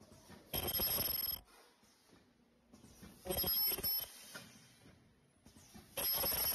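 KL-62 sachet filling and packing machine running through its cycle: three bursts of a high, bell-like ringing rattle, each just under a second long, repeating about every two and a half to three seconds.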